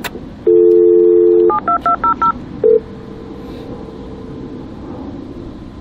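A telephone dial tone for about a second, then five quick touch-tone (DTMF) keypad beeps and one more short beep. These are the loudest sounds, heard over a low steady background hum.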